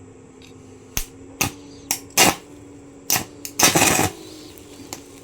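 Welding arc from a Kemppi Minarc 150 inverter stick welder set to 80 amps, struck with nails as the electrodes. There are several short, sharp strikes, then a longer burst of arc just before the end.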